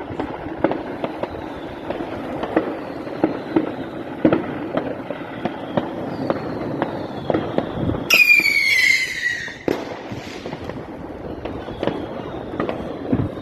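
Fireworks going off in a dense run of bangs. About eight seconds in, a loud whistling firework sounds for about a second and a half, its pitch falling, then cuts off suddenly.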